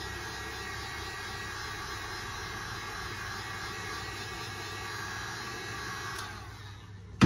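Heat gun blowing steadily, a whirring hiss with a faint whine. It stops about six seconds in and winds down, and a sharp knock follows near the end.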